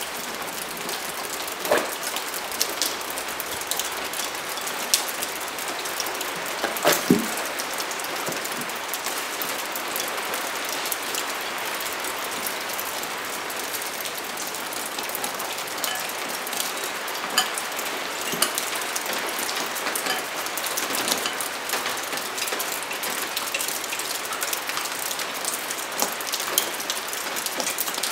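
Steady rain hiss, with scattered light clicks and taps from hands working on a spoked dirt bike wheel and a single louder knock about seven seconds in.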